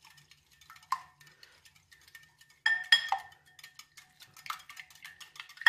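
Wire whisk beating eggs and milk in a glass bowl, its wires ticking quickly against the glass, with a few louder clinks that ring briefly, the loudest about three seconds in.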